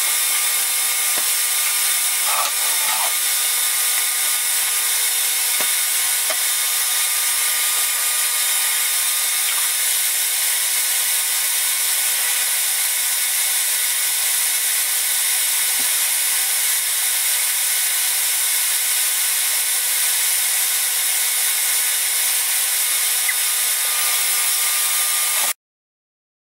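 Ninja countertop blender running steadily at speed, blending papaya and aloe into juice: a loud, even motor whine that cuts off abruptly near the end.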